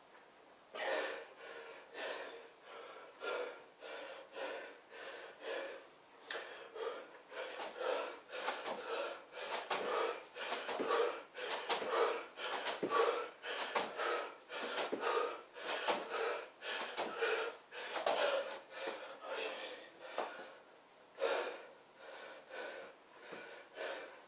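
A man breathing hard in quick, forceful breaths from the exertion of split lunges, the breaths coming faster and louder through the middle and easing near the end.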